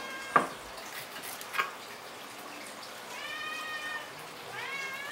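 A hungry cat meowing repeatedly: one meow ends just after the start, a longer one comes about three seconds in, and another begins near the end with a rising pitch. A sharp knock comes about half a second in, and a smaller one a second later.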